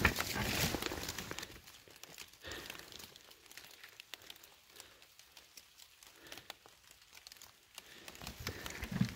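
Rustling and crackling of forest leaf litter and undergrowth, loudest in the first second and a half, then faint scattered crackles.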